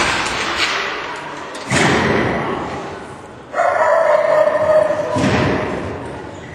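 Agility seesaw plank banging down onto the floor with a heavy thud that rings on in the large hall, a second thud about two seconds in, then a dog yipping and barking excitedly through the second half.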